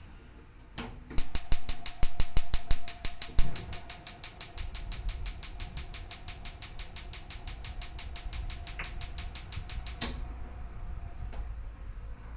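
Gas hob's spark igniter clicking rapidly, about six clicks a second, while the burner knob is held in, with a few louder knocks from the knob in the first seconds. A low rumble of the burner lighting comes in under the clicks about four seconds in, and the clicking stops about ten seconds in.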